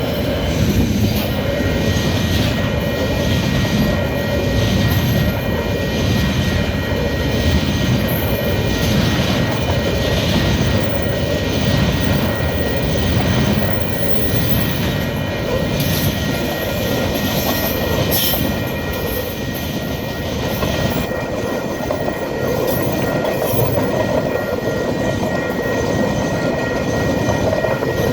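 A train hauled by a KiwiRail DL-class diesel locomotive passing over a level crossing: a steady loud rumble of engine and rolling wheels, with wheel knocks about once a second.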